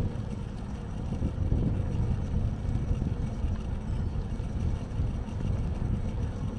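Wind rumbling on the microphone of a bicycle in motion, mixed with road noise: an uneven low rumble with no clear tone or sudden sound.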